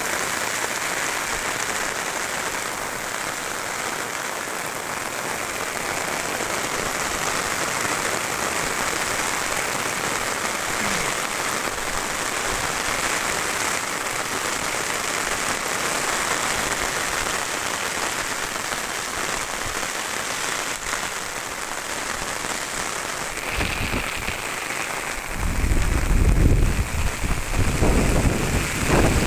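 Heavy rain falling as a steady, even hiss. Near the end, gusts of wind buffet the microphone with loud, irregular low rumbling.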